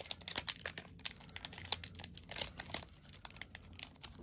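Foil wrapper of a Pokémon card booster pack crinkling in the hands as it is handled and worked open, a run of irregular crackles.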